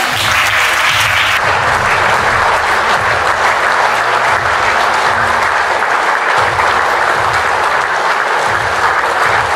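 A large audience applauding, steady and sustained.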